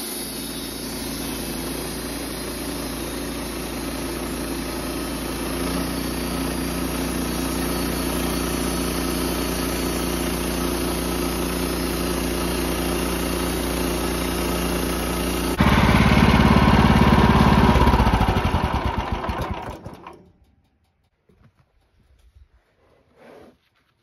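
Woodmizer LT15 band sawmill running steadily as its blade saws through an alder log. About two-thirds of the way through it gets louder, then winds down and stops. A few faint knocks follow near the end.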